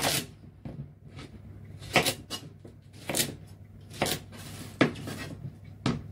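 Kitchen knife chopping raw pumpkin into small pieces, the blade knocking on the cutting board about six times, roughly once a second.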